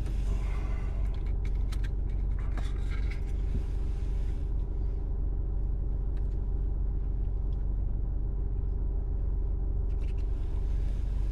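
Steady low rumble of an idling car engine heard from inside the cabin, with faint clicks and rustles in the first few seconds as sauce is put on a pulled pork sandwich.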